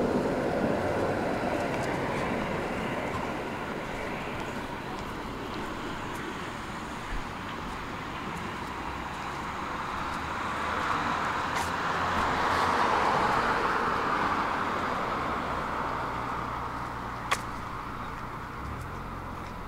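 Tram running along the track: a steady rolling noise that swells about halfway through and then eases off, with one sharp click near the end.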